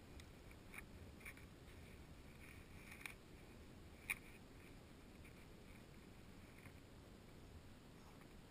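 Near silence, with a few faint scuffs and clicks; the sharpest click comes about four seconds in.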